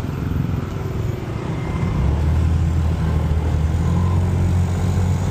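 Motorcycle running and pulling away from a stop, a steady low rumble that grows louder about two seconds in as it gets moving.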